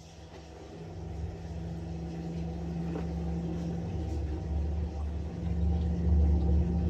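LG washing machine running: a steady hum over a low rumble that grows gradually louder.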